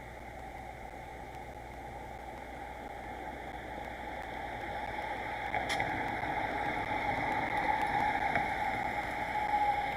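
A train approaching on the line, its rolling noise growing steadily louder, with a single sharp click a little past halfway.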